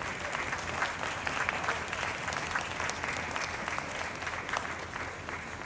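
Applause: many people clapping together, a steady patter of hand claps that eases slightly near the end.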